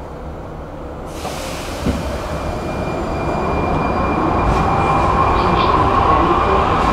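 Prague metro line B train pulling away from a station, heard from inside the carriage: the rumble of wheels and running gear grows steadily louder as it gathers speed, with a thin high whine in the middle.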